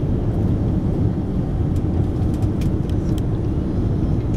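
Steady cabin noise of an Airbus A330-300 descending on approach: engine and airflow rumble heard inside the cabin from a window seat beside the wing. A few faint clicks about two to three seconds in.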